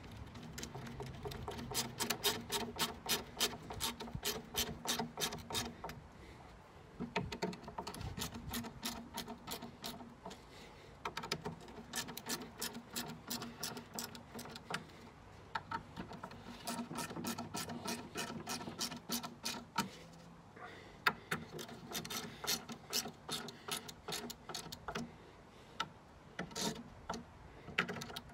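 Ratcheting hand screwdriver clicking in rapid runs as its handle is turned back and forth, driving wood screws into the slats of a plywood record crate. The runs last a few seconds each, with brief pauses between them.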